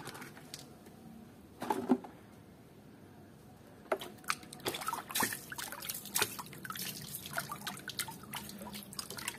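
Water splashing and dripping in a plastic tub as plastic toy animals are rinsed by hand. It is quiet at first, with one brief louder sound about two seconds in, then a busy run of small splashes and drips from about four seconds in.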